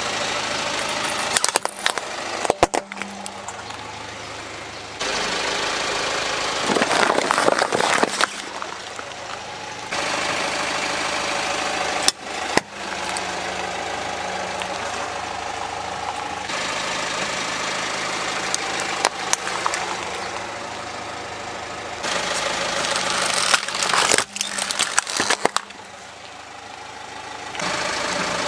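Car engine idling as the tyre rolls slowly onto small plastic toys, with clusters of sharp cracks and crunches as they break under the weight. It comes as a string of short clips, the engine hum changing level abruptly between them.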